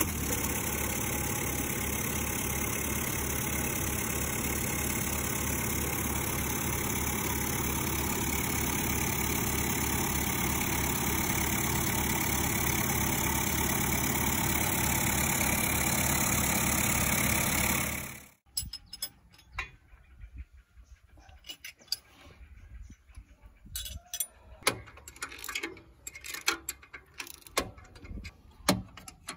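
Freshly rebuilt Isuzu 4JJ four-cylinder diesel idling steadily with an even beat, then cutting off suddenly about 18 seconds in. After that come scattered metal clicks and knocks from wrenches being worked on the exhaust.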